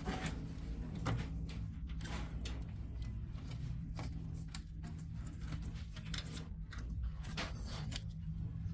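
Scattered light clicks and taps of hands working on copier parts and connectors, irregularly spaced, over a steady low hum.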